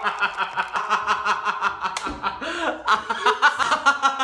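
Two men laughing hard together, in rapid, repeated bursts of voiced laughter.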